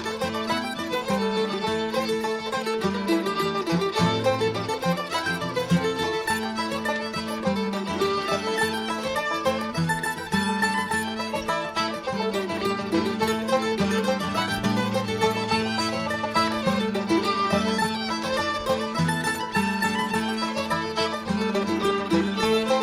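Bluegrass string band music: a fiddle carries the tune over a steady guitar rhythm, with banjo and mandolin.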